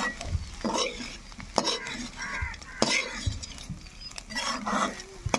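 Steel spatula stirring and scraping bitter gourd and egg fry around a metal pan, in repeated short strokes.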